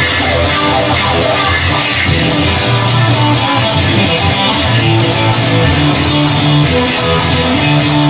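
Instrumental stretch of a rock song: electric guitar over bass guitar and a drum kit, with no singing.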